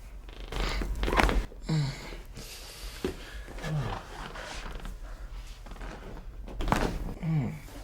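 A man groaning low three times during a chiropractic adjustment, each groan sliding down in pitch, between loud breathy exhales about a second in and again near the end.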